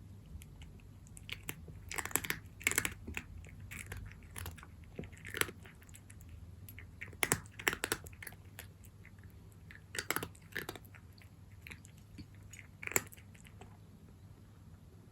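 A cat chewing dry kibble: irregular crisp crunches, sometimes two or three close together, with pauses between, the last one about two seconds before the end.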